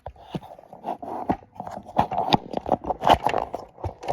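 Close handling noise from a camera being fitted onto a tripod: irregular clicks, knocks and scraping rubs right at the microphone.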